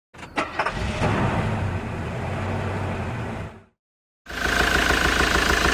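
Ford Transit 2.4 TDCi diesel engine idling with a rhythmic knock from a failing hydraulic lifter, starting after a brief cut to silence about four seconds in. Before the cut there is a steady low hum that opens with a few sharp clicks.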